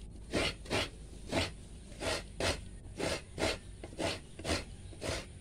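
Coconut half scraped by hand against a coconut grater, grating out the meat: a steady run of rasping strokes, about three a second.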